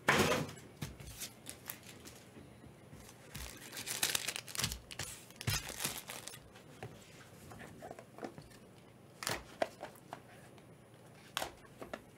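Packaging being torn and crinkled for a few seconds around the middle, with a knock at the start and a few sharp clicks later as a cardboard trading-card box is handled.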